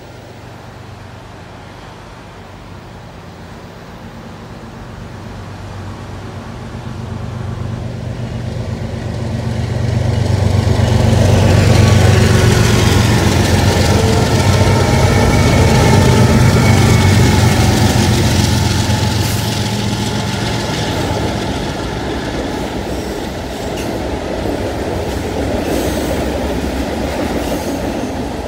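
BNSF train passing. The diesel locomotive's engine drone builds as it approaches and is loudest about ten seconds in, then the rail cars roll past with steady wheel noise that slowly eases.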